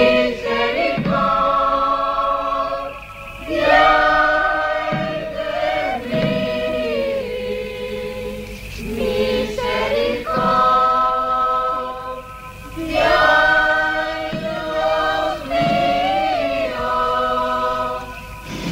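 A choir singing slow, held chords in phrases a few seconds long, with short breaks between the phrases.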